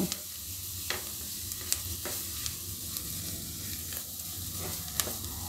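Chopped onion and capsicum with flour frying in butter and oil in a kadhai, giving a steady sizzle, while a silicone spatula stirs them and knocks against the pan with a few sharp ticks.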